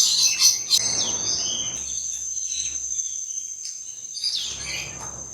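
Birds chirping over a steady, high-pitched insect drone, with a few louder chirps near the start and again near the end.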